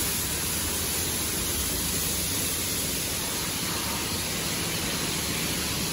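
Steady, even hiss of parking-garage background noise with a low rumble beneath, unchanging throughout.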